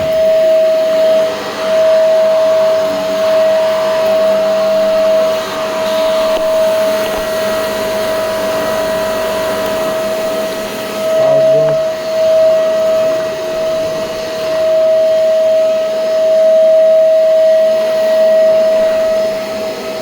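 Shark Duo Powerfins vacuum cleaner running steadily with a loud, constant high motor whine over rushing air, its suction restored now that the unlocked base latch has been pressed shut.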